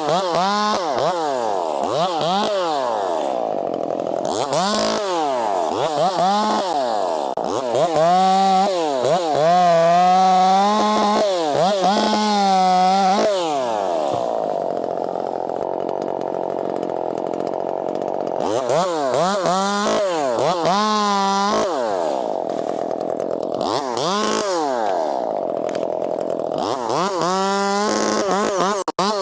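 Two-stroke chainsaw revving up and down repeatedly, held at high revs for a few seconds near the middle before dropping back.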